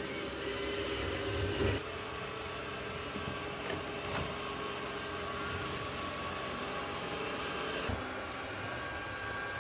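Roborock robot vacuum running: a steady whir with a low hum, a short louder knock about two seconds in, and a change in its tone near the end.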